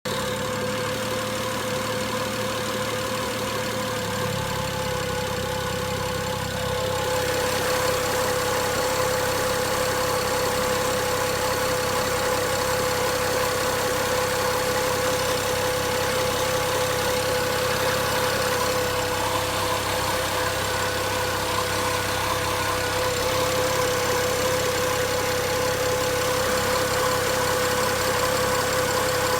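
BMW 335i's turbocharged straight-six idling steadily with a ticking noise whose cause the owner does not know. It gets a little louder about seven seconds in.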